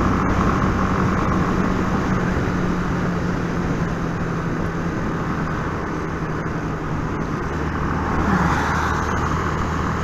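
Yamaha Fazer 250 single-cylinder motorcycle riding at steady speed in the rain: the engine runs evenly under a constant rush of wind and wet-road noise. Near the end the engine note dips briefly as the rushing grows louder.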